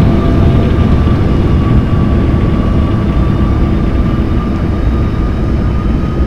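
Aircraft engine noise: a loud, steady rumble with a thin, steady whine held above it.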